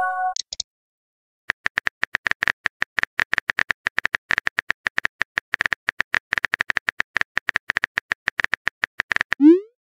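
Rapid, irregular keyboard tap clicks from a phone texting app as a message is typed out letter by letter. A short rising 'bloop' near the end, the loudest sound, marks the message being sent. The tail of an earlier chime fades in the first moment.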